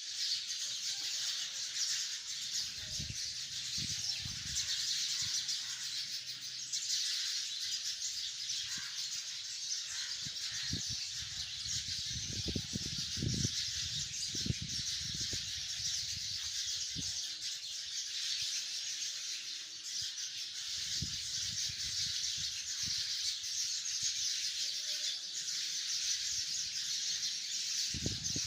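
A large flock of sparrows chirping together in a tree: a dense, unbroken chatter of many overlapping calls. Low rumbles come and go underneath, a few seconds in, through the middle and near the end.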